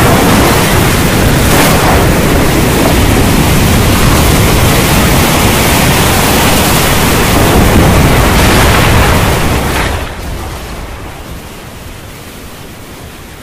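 Storm sound effect of heavy rain: a loud, steady rushing noise with a deep rumble underneath. It fades down about ten seconds in.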